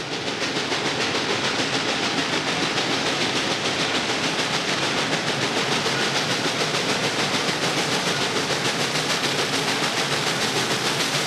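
CPR 3716, a 2-8-0 steam locomotive, working hard with a train: a fast, even run of exhaust chuffs over a steady rush of steam, swelling up in the first second and then holding loud.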